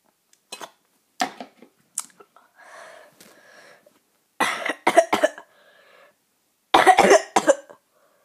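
A boy coughing in two fits of several harsh coughs, about four and a half and seven seconds in, after a few short clicks. He has a bad cough.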